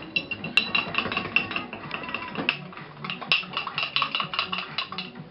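Cutlery clinking and scraping against a dish in rapid, uneven taps, several a second, each with a short bright ring.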